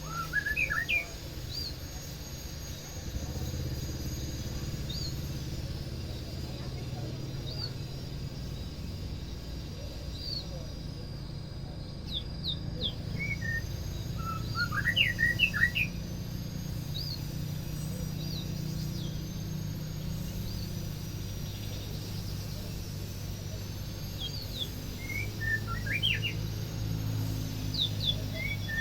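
White-rumped shama (murai batu) singing short bursts of quick whistled notes, in three clusters: right at the start, around the middle, and near the end. A steady low hum runs underneath.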